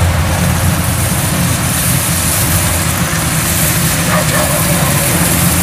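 Kubota DC-93 combine harvester's 93-horsepower diesel engine running steadily under load as the machine cuts rice, a continuous deep hum with a hiss of machinery over it.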